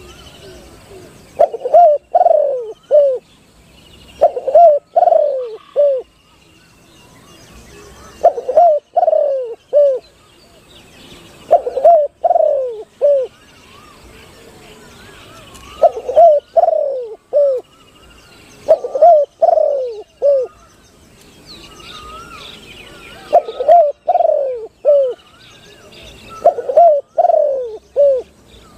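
Spotted dove cooing: a deep phrase of three or four notes, repeated about every three to four seconds. Small birds twitter faintly behind it.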